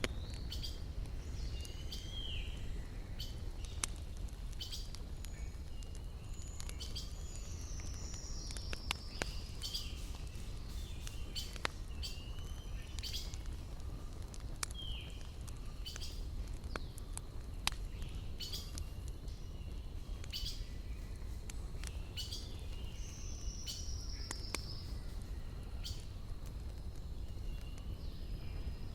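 Wood fire crackling with scattered sharp pops over a low steady rumble, while forest birds call now and then: short chirps, and twice a falling trilled phrase.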